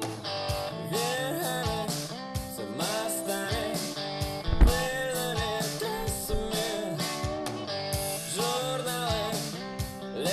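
A song with guitar and singing over a drum beat, played back through Thonet & Vander Kugel loudspeakers.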